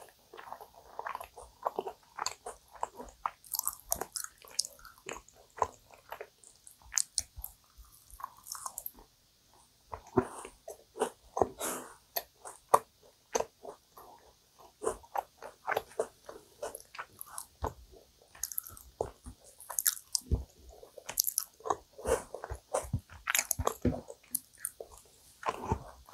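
Close-miked chewing of dense, sticky yakgwa (Korean honey cookie), with many short, irregular wet mouth clicks and smacks.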